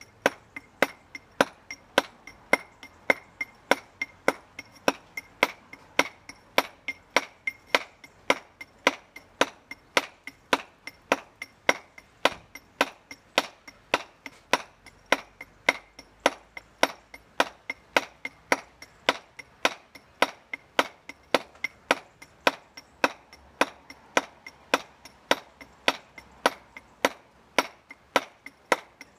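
A round-headed mallet striking a steel chisel into a red sandstone coping stone, in a steady run of sharp knocks at roughly three a second, alternating stronger and lighter blows, as the stone's face is dressed.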